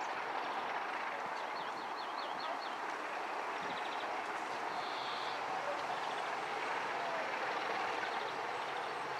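Diesel locomotive hauling a passenger train as it approaches: a steady engine and rail noise, with a low engine drone coming in about halfway through and growing as the train nears.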